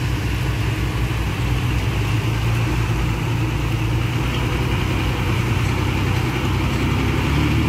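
Heavy diesel engine of earthmoving machinery running steadily at a low, even pitch.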